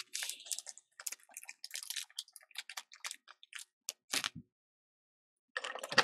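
Light, irregular clicks and rustles of small hand tools being handled, with a louder cluster of clicks near the end.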